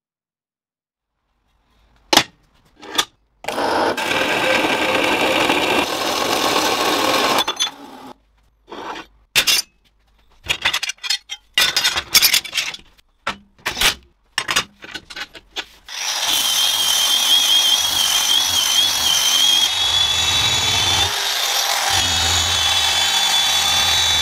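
A few clinks, then a tool runs for about four seconds, followed by a string of clinks and knocks as stainless steel bar stock is handled on a steel welding table. Then a FEIN angle polisher with an abrasive drum runs steadily against a stainless steel bar clamped in a vise, with a wavering high whine.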